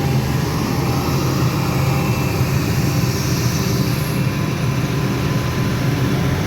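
Heavy construction machine's diesel engine running steadily, a loud, low, continuous drone.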